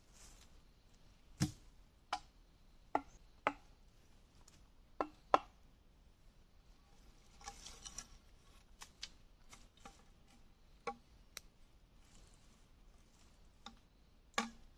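Machete chopping at bamboo and wood: sharp, irregular chops, six loud ones in the first five seconds or so, then a run of lighter taps and clicks, and one more hard chop near the end.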